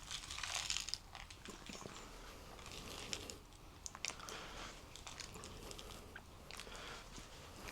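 Heavy, strained breathing close to the microphone from a man doing dumbbell curls. It is loudest in the first second, then goes on softer, with a few sharp clicks in between.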